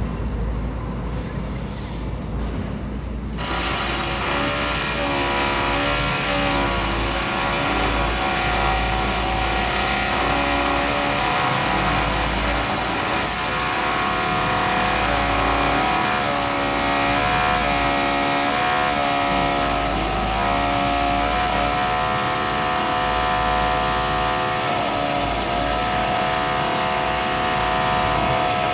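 Heavy construction machine, most likely an excavator, with its diesel engine running over a deep rumble. After a low rumble in the first few seconds, a steady whine joins the engine sound and wavers up and down in pitch as the machine works under load.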